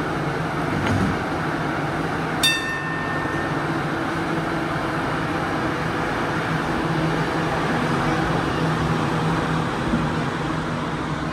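Hong Kong Light Rail train at the stop, a steady electric hum over traffic noise, with a single short bell-like ding about two and a half seconds in.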